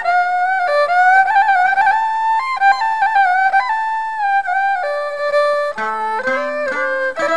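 Khmer traditional music: a two-string bowed fiddle plays a melody that slides between notes, with a plucked zither adding lower notes from about six seconds in.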